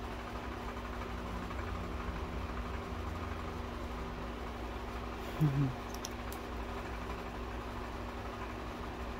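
Steady low machine hum of room tone, like a running fan or small motor. About five seconds in there is a brief low hum of a voice, two short falling notes, followed by a couple of faint light clicks.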